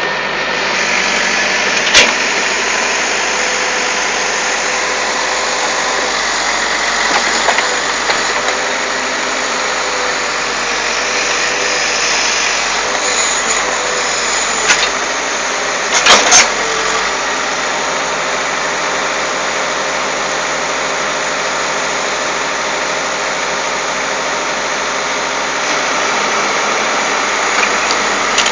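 Excavator engine running steadily under a loud, dense mechanical noise. Sharp knocks cut through it, one about two seconds in and a quick pair about sixteen seconds in.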